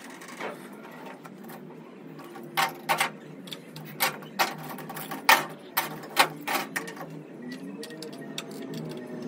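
About ten sharp clicks and knocks, starting a couple of seconds in and spread over about four seconds, from hands working inside an opened Cerwin-Vega loudspeaker cabinet and handling the wiring at the driver.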